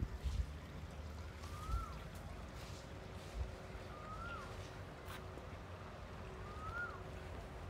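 A bird repeating a short whistled note that rises and then falls, three times, about every two and a half seconds, over low rumbling noise with a few bumps and a faint steady hum.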